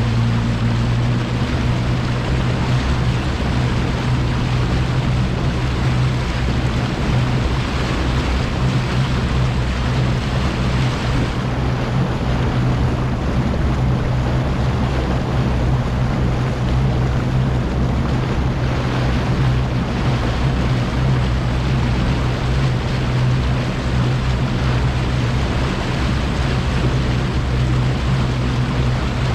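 Bass boat running at speed: the outboard motor runs with a steady low hum over the rush of wind and water past the hull.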